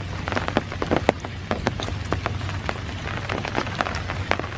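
Steady rain falling, with many separate drops hitting one by one as sharp ticks over an even hiss.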